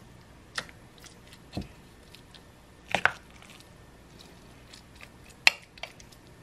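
Spoon scooping a soft cheese filling and dropping dollops onto a lasagna, with wet squishes and a few separate clicks of the spoon against the dishes; the sharpest click comes about five and a half seconds in.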